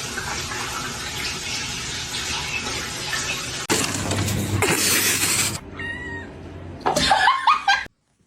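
A cat meowing near the end, over a steady rushing noise that grows louder for about two seconds midway and cuts off abruptly.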